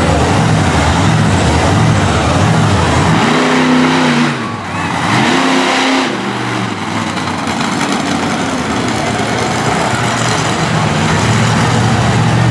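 Monster truck's big-block V8 revving loudly, climbing and falling in pitch twice a few seconds in, then running on at a steady high note.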